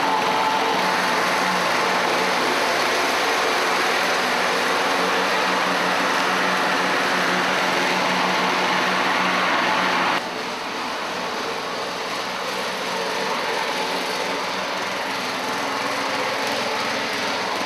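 A small engine running steadily, lawn-mower-like, with a constant hum. About ten seconds in the sound drops abruptly to a slightly quieter, duller level.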